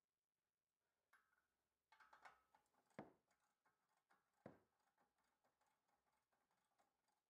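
Near silence, with a few faint metallic clicks and taps from a hand tool working on the brake caliper bolts, the clearest about three seconds in and again a second and a half later.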